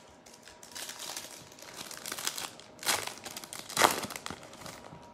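A foil trading-card pack wrapper being torn open and crinkled in the hands, with two sharper, louder rips about three and four seconds in.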